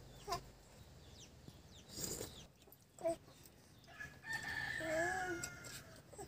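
A rooster crowing once, a long call starting about four seconds in, with a few short calls before it.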